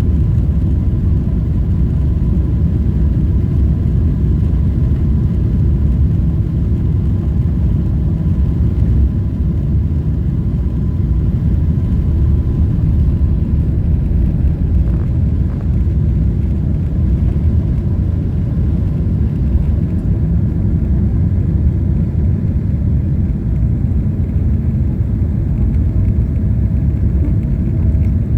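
Cabin noise aboard a Boeing 777-300ER: a steady, loud low rumble of its GE90 jet engines and airflow, with a faint steady whine above it.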